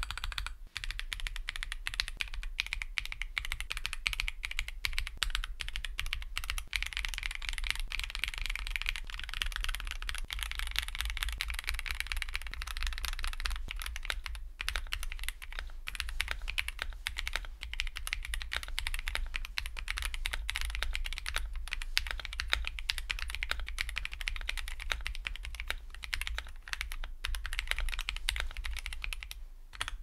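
Typing test on an Akko ACR Pro 75 gasket-mount mechanical keyboard with a solid acrylic case, polycarbonate plate and no case foam, fitted with hand-lubed Akko CS Jelly Black linear switches and Akko SAL double-shot ABS keycaps. Continuous fast keystrokes, stopping near the end.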